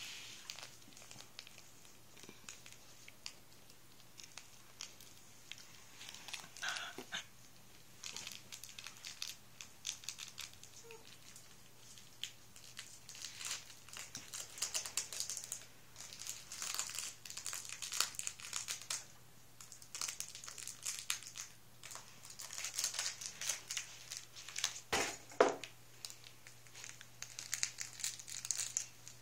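Cairn terrier puppies scrabbling and playing on a fabric play mat, with repeated bursts of crinkling and rustling as they move over it and its toys. Two brief squeaks stand out, one about seven seconds in and a stronger one near twenty-five seconds, with a low steady hum underneath.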